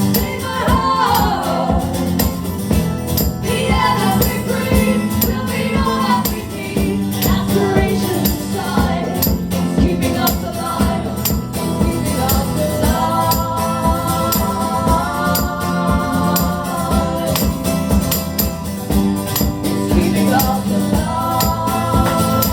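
A band playing a song live: long held sung notes over a steady beat with tambourine.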